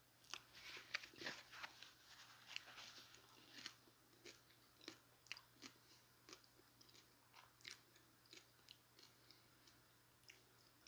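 Close-miked chewing of a chicken taco: crisp crunches and wet mouth sounds, a dense burst of crunching in the first few seconds, then slower, spaced chews.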